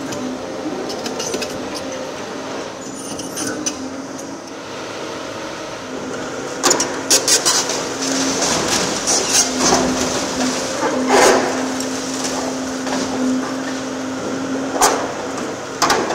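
Volvo EC750E high-reach demolition excavator running with a steady drone while its demolition jaws break into brick and concrete: cracks and clattering of falling masonry, busiest from about six seconds in and again near the end.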